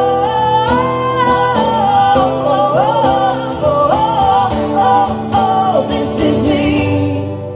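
Live acoustic music: women's voices singing long held notes in harmony over strummed acoustic guitar, then fading out near the end as the song closes.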